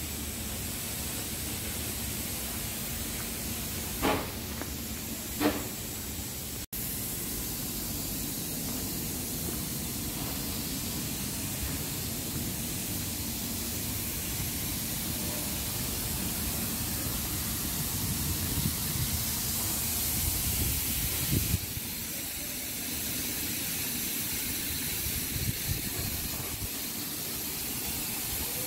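Steady hissing noise, with two short sharp knocks about four and five and a half seconds in.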